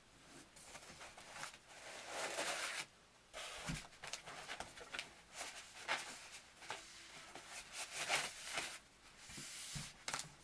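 Packaging being handled while a keytar is unpacked: irregular rustling, with a soft thump just under four seconds in.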